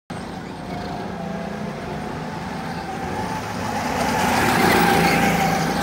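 Go-kart motors running on a track, with a steady hum that grows louder as two karts pass close by, peaking about five seconds in.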